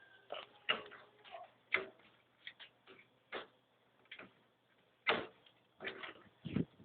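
Irregular clicks and knocks of a CPU fan and heatsink being unclipped and lifted out of a desktop computer's case, hard plastic and metal parts tapping against each other.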